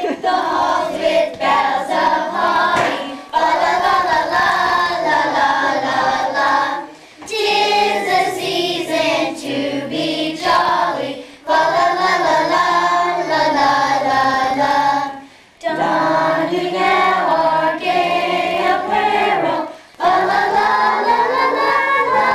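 A group of young girls singing a song together, in phrases of about four seconds with short pauses for breath between them.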